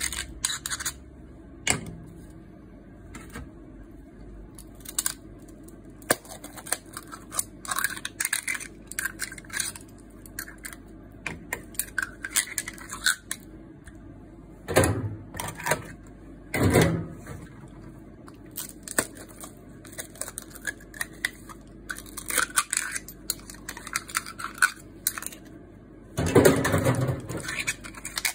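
Red clam (ark shell) shells being shucked with a steel clam knife: irregular small clicks and scrapes as the blade prys and scrapes along the shells, with a few louder clattering bursts of shell and knife against a stainless-steel tray.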